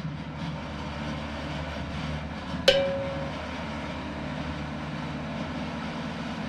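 A steady low mechanical rumble, with one sharp metallic clank that rings briefly about two and a half seconds in.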